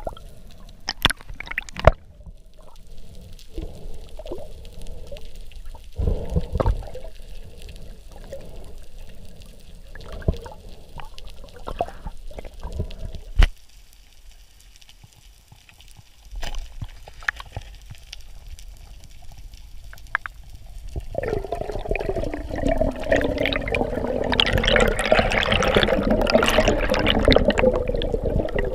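Muffled underwater water sounds: gurgling and bubbling with scattered sharp knocks, swelling into a louder, steady rushing wash about 21 seconds in.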